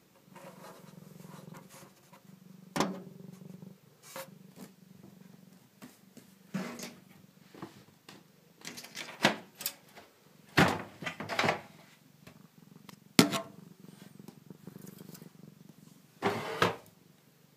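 A domestic cat purring steadily for the first few seconds, then a scattering of sharp knocks and scuffs against the metal PC case it sits in, the loudest a little past the middle.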